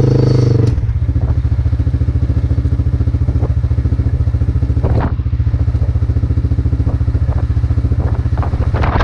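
A vehicle engine running with a rapid, even pulsing beat; it eases off from a fuller, louder note to a steady run under a second in. A single sharp knock sounds about five seconds in.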